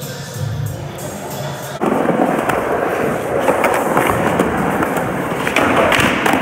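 Quiet background music, then about two seconds in a sudden switch to a skateboard's wheels rolling loudly over smooth concrete. Several sharp clacks of the board's deck and trucks striking come over the rolling, the last two close together near the end.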